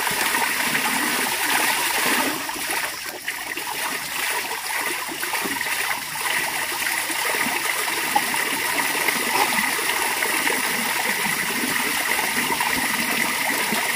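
Running water, a steady flow with splashing and trickling.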